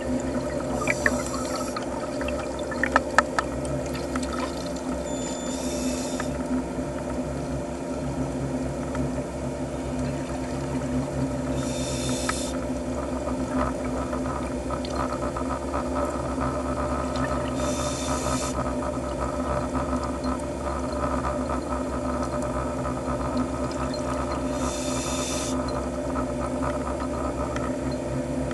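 Underwater ambience picked up by a camera housing: a steady low drone with several steady hum tones. A short hiss comes about every six seconds, the rhythm of a diver breathing through scuba gear, and a few sharp clicks sound in the first few seconds.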